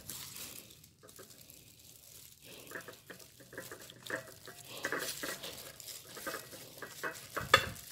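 A knife cuts down through a whole peeled Cayenne pineapple on a ceramic plate, then gloved hands pull the fruit apart. Thin plastic food-prep gloves crackle along with the wet flesh: a run of short crackles that gets busier from about a third of the way in, with one sharper stroke near the end.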